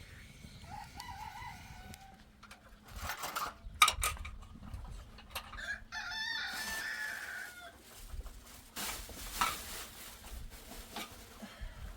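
Farmyard chickens: a rooster crows once about six seconds in, with short hen clucks around it. Sharp knocks come in between, the loudest about four seconds in.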